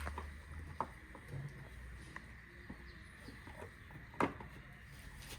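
A few sharp clicks and knocks, the loudest about four seconds in, as the lower half of the scooter's plastic chain cover is fitted back in place.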